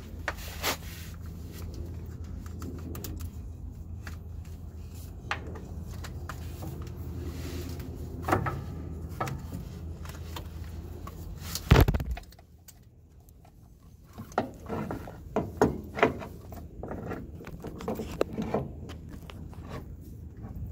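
Small metallic clinks, knocks and scrapes of a power steering pump and its hoses being handled and worked up through a truck's chassis. A steady low hum runs under the first half and stops after one loud thump about halfway through.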